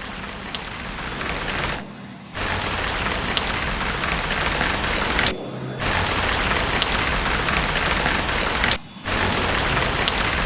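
Steady heavy rain with a low rumble underneath and a few faint ticks. It cuts out abruptly for a split second three times, about two, five and nine seconds in, then resumes at once.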